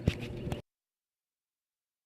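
A couple of faint clicks over low background noise, then the sound cuts off completely about half a second in, leaving dead silence.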